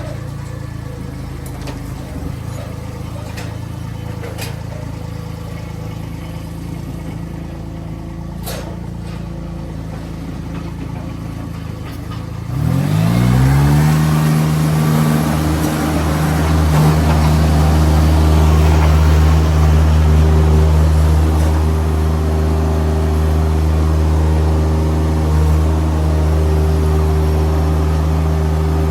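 An engine idling steadily, with a few sharp clicks, then revved up about 13 seconds in and held at a steady, louder higher speed.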